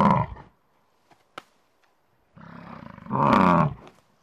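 American bison bellowing: a deep, drawn-out call trails off in the first half-second, then after a pause a second bellow starts as a low grunt and swells loud about three seconds in before cutting off.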